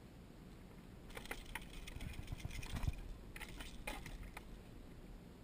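Faint scattered clicks and light metallic clinks of a metal fish grip and pliers being worked at a caught mangrove snapper's mouth, loosest and busiest from about a second in until near the end.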